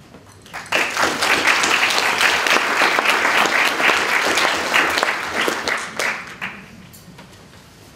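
Audience applauding. It starts about a second in and dies away after about six seconds.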